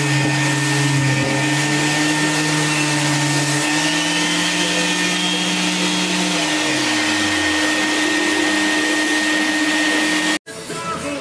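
Electric random orbital sander with a dust-extraction hose running. It speeds up as it is lifted off the wooden panelling a few seconds in, then is switched off and winds down. The extraction vacuum keeps running with a steady whine until the sound cuts off near the end and music begins.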